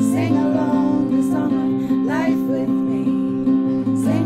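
A song with strummed acoustic guitar and a singing voice, the vocal phrases coming in about every two seconds.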